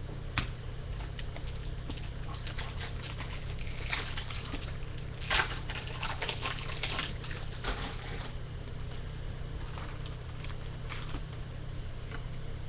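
Crinkling and tearing of a 2015 Bowman Baseball hobby pack's wrapper being ripped open, a dense run of crackles loudest about five seconds in, then only a few soft rustles as the cards are handled. A steady low hum sits underneath.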